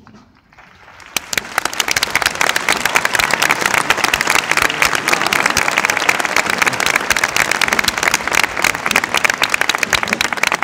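A large crowd breaking into applause about a second in, the clapping swelling quickly and then going on loud and steady.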